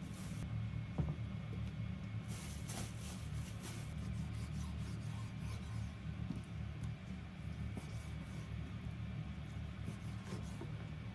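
Irregular rasping and rubbing strokes of food being prepared by hand, heaviest a few seconds in, over a steady low hum.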